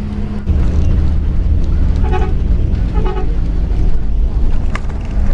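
Steady low drone of the bus's engine and road noise, heard from inside the moving bus. Two short horn toots sound about a second apart around the middle.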